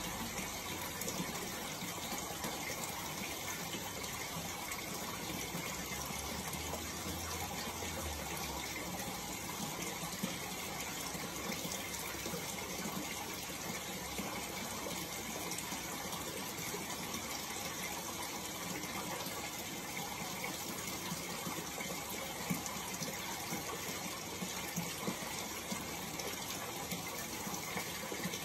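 Steady rushing splash of water, like an aquarium filter's return flow pouring into the tank.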